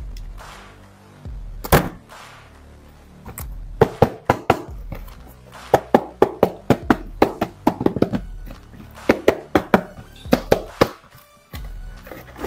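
Background music, over which a quick run of sharp clicks and knocks comes from a cardboard toy box being handled and opened.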